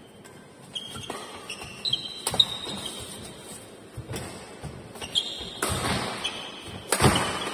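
Badminton doubles rally: rackets striking the shuttlecock, shoes squeaking and footfalls thudding on the wooden court floor. The loudest moments come about two-thirds of the way in and just before the end.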